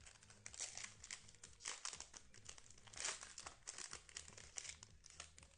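Plastic-foil trading card pack wrapper crinkling and tearing as it is opened and handled, in an irregular run of crackles.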